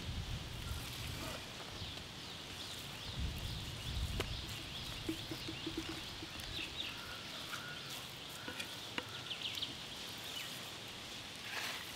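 Birds chirping again and again, with a low rumble in the first few seconds and a few sharp taps of a knife on a wooden chopping block as tuna is sliced into strips.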